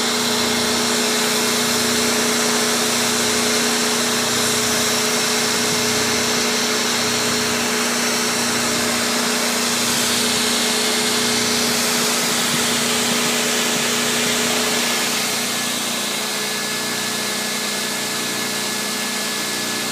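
Router table's router running steadily with no cut being made: a continuous machine hum with steady tones. It drops slightly in level about fifteen seconds in.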